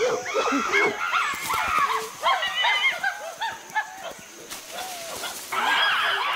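A group of male chimpanzees calling together while mobbing a leopard: overlapping high barks and hoots from several animals. The calling swells into a louder, denser chorus about five and a half seconds in.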